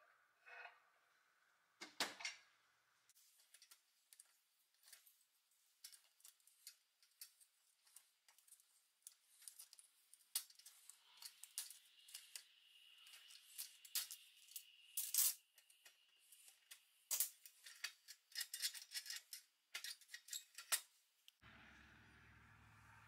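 Small metal clicks, taps and scrapes from taking apart a 1950s Doepke Adams pressed-steel toy road grader: a hooked tool works at the cap holding a rubber-tyred wheel on its axle. A thin scraping squeal comes through for a few seconds midway. A steady low hum starts near the end.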